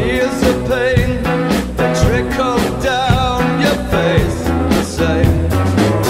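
Rock music with singing and a steady drum beat, laid over the footage.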